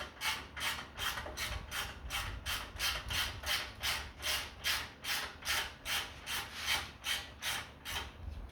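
Half-inch-drive Capri ratchet worked back and forth rapidly on a loose bolt, its pawl rasping in a short burst on each stroke, about three to four strokes a second.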